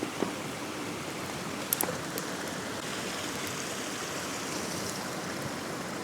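Steady rushing of water, with a few light clicks about two seconds in.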